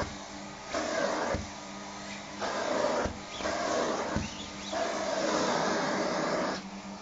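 Vacuum cleaner running with a steady hum, its nozzle drawn over a nylon down jacket; four times the suction gets louder for a second or two as the fabric is sucked against the nozzle, with a few soft thumps between.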